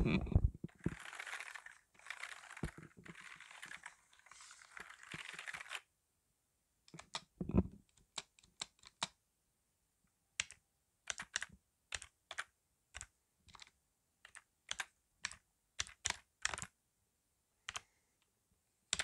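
Close-miked computer keyboard handled and typed on slowly: a soft scratchy rustle for the first few seconds, then single key presses clicking at an irregular, unhurried pace.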